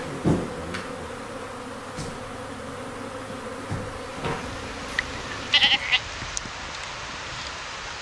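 Quiet ambient background with a faint steady hum, broken by a few brief animal calls, the clearest one about two-thirds of the way through.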